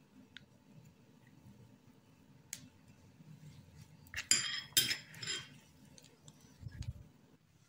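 A metal spoon clinking and scraping against a mixing bowl several times about four seconds in, with faint sounds of hands working dough around it. A dull low thump near the end.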